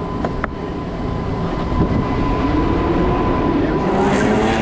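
Skateboard wheels rolling over rough street pavement with a steady rumble, heard with traffic and street noise. A rising pitched sound joins near the end.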